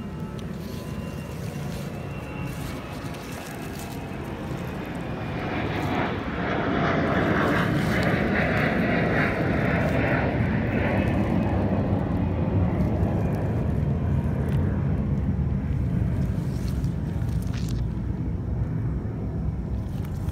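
A continuous engine drone that swells about six seconds in, stays strong for several seconds, then slowly eases off.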